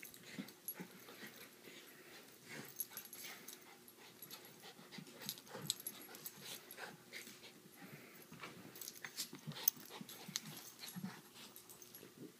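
Two puppies play-fighting: scuffling with scattered clicks and thuds, whimpers and wheezy panting breaths.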